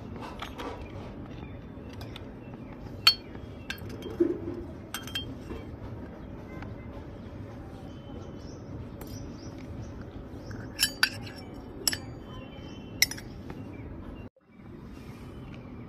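Tiny stainless-steel toy pots and utensils clinking as they are handled and set down: scattered sharp clinks, a cluster about three to five seconds in and another about eleven to thirteen seconds in, over a steady low hum. The sound cuts out briefly near the end.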